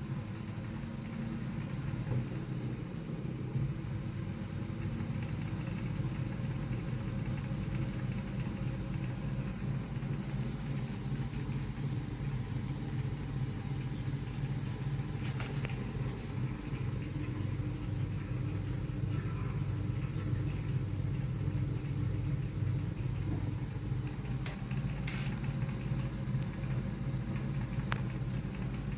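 Compact 3 kg iHunt automatic washing machine running with a steady low motor hum, with a few brief clicks about halfway through and near the end.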